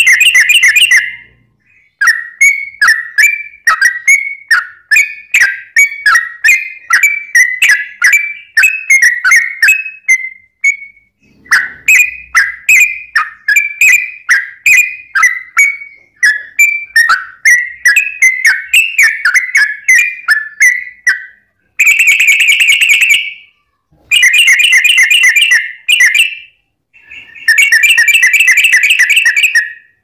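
Yellow-vented bulbul (trucuk) song, loud: a run of short whistled notes, about two a second, broken by brief pauses. It then changes in the last third to three dense rapid trills, each a second or two long. This is the long-roll (ropel panjang) call used as a lure to set other trucuk singing.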